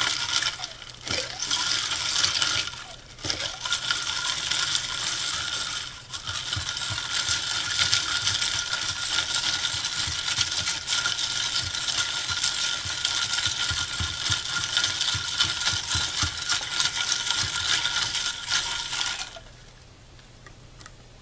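A spoon stirring ice cubes in an iced coffee drink in a tall glass: ice clinking and rattling against the glass, with the liquid sloshing. It runs with brief pauses about one, three and six seconds in, and stops about nineteen seconds in.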